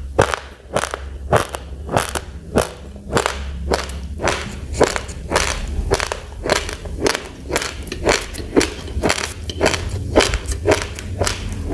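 Uncooked rice grains being chewed close to the microphone: sharp, dry crunches about three a second, over a low steady hum.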